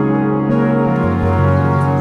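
Soft ambient background music of sustained keyboard chords, the chord changing twice in the first second.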